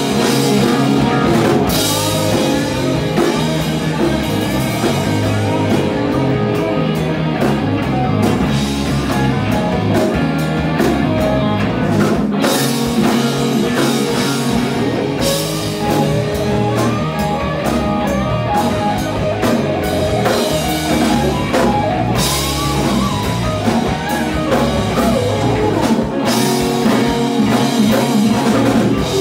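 Rock band playing live, no vocals: electric bass, electric guitar and a drum kit together, loud and steady, with cymbal crashes washing in and out.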